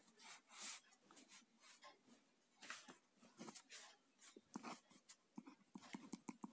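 Faint scratching of a ballpoint pen writing on paper, in short irregular strokes.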